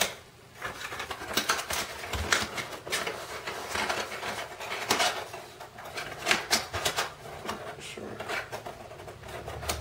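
Cardboard being handled and folded into a small box, with a steady run of crackles, creases and taps.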